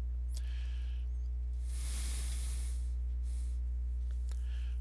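Steady low hum, with a short hiss about two seconds in and a fainter one just after three seconds.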